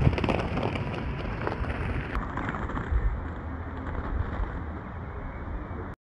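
Wind rumbling on the microphone, with a few light knocks in the first two seconds; the sound changes abruptly about two seconds in.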